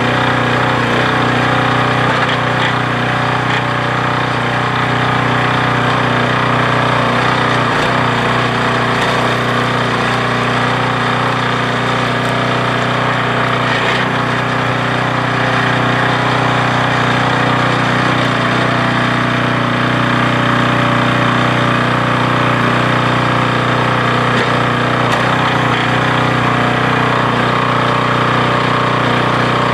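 Small gasoline engine of a hydraulic log splitter running steadily at a constant speed.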